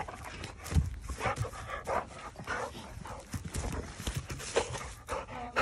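American Staffordshire terrier playing rough in the grass: quick, uneven huffs of breath and scuffling, with a thump about a second in.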